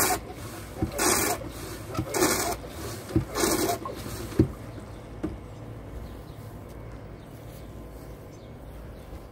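Hand-operated suction pump of a gold hand dredge, worked in strokes about a second apart, each stroke a short rush of suction noise as water and air are drawn through the hose. The pumping stops about four seconds in.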